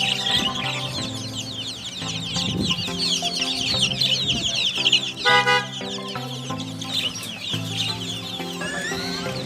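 Many small birds chirping continuously and densely, with chickens among them and one loud chicken call about five seconds in.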